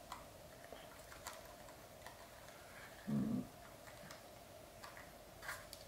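Near-quiet room with a faint steady hum and a few faint, scattered clicks of a small plastic drone being handled. A brief low voice sound comes about three seconds in.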